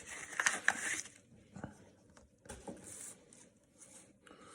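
Trading card pack being handled and opened: crinkly wrapper rustles and light clicks of cards and packaging, busiest in the first second, with shorter bursts about midway and near the end.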